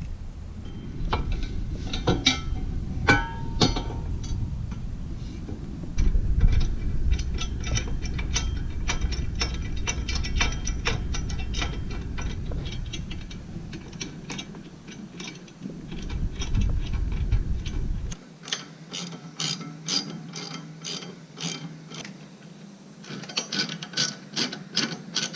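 Hand socket ratchet clicking in quick runs of strokes as bolts coated with blue thread locker are run in and tightened on a motorcycle crash bar mount. Low rumbling handling noise and scattered knocks under the clicking through the first two-thirds.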